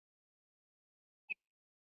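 Near silence, broken once by a single short click about a second and a quarter in.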